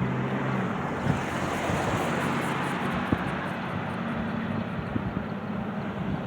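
Wind rushing over the microphone with a few short buffets, over a low engine hum in the background.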